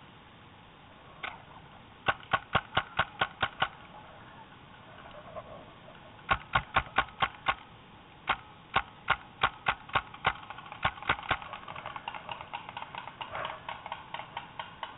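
Paintball marker firing in rapid bursts of sharp pops, about five shots a second: a burst of about eight shots some two seconds in, another around six seconds, a longer string after eight seconds, then fainter, quicker shots near the end.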